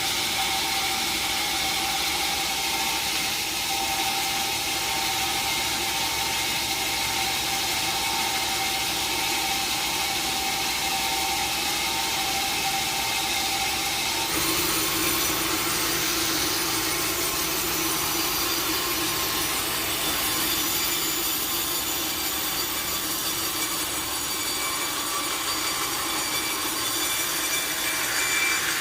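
A sawmill saw cutting through a log: a steady, continuous sawing noise whose tone changes abruptly about halfway through.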